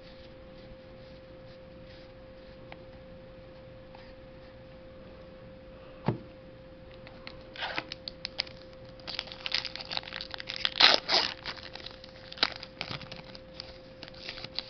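A Pokémon card booster pack's foil wrapper being torn open and crinkled: a dense run of rustling and tearing starting about halfway through, after a single knock about six seconds in. A faint steady hum runs underneath.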